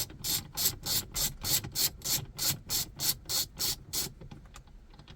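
Ratchet wrench with a 16 mm socket clicking in quick, even strokes, about three a second, as the steering wheel's centre nut is wound loose. It stops about four seconds in.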